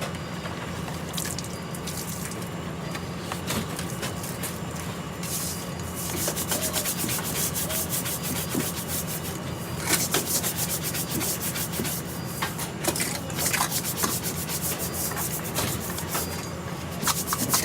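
Scrubbing by hand, rapid rasping strokes of a brush or pad against a hard surface. The strokes are sparse at first and become fast and continuous from about six seconds in, over a steady low hum.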